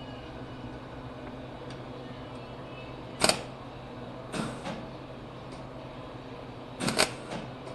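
A wire-feed (MIG) welder striking short arcs: several brief bursts a second or more apart, two of them close together near the end. The tacks come out poor and ugly, which the welder puts down to kinks in the feed wire cable.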